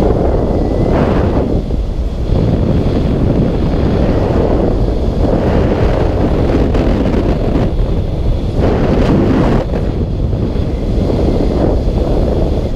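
Wind buffeting a camera's microphone, a loud, steady rushing with uneven surges, while descending under an open parachute canopy.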